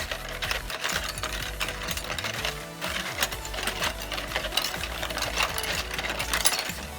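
Rapid, irregular scratchy scraping from cleaning small metal clips, over background music.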